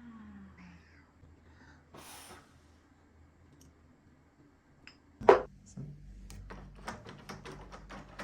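A door's jammed lock being tried: a sharp knock about five seconds in, then a run of quick clicks and rattles from the handle and lock.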